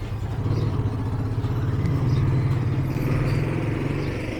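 An engine running steadily: a low, even hum with a fast pulse.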